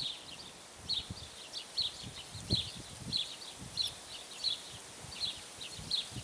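A songbird calling over and over, short high chirps about one and a half times a second, with low irregular rumbles underneath.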